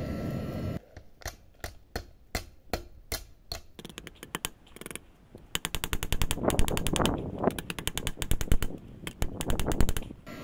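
Electric heat gun blowing air into the charcoal forge, stopping under a second in. It is followed by a rapid run of small-hammer blows forging the hot rebar blade flat, about five a second at first and quicker and denser from about halfway.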